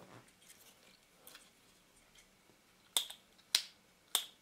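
Faint handling ticks, then three sharp clicks about 0.6 s apart in the second half: the Canon EOS 450D's mirror mechanism snapping as it is worked by hand.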